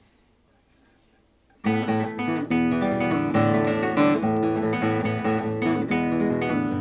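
Near silence, then about a second and a half in a capoed nylon-string classical guitar starts playing the song's intro, plucked notes and chords ringing on together.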